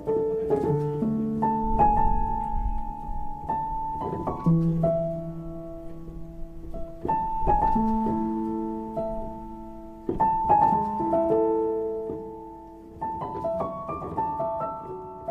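Background music: slow solo piano, notes and chords struck every couple of seconds and left to ring.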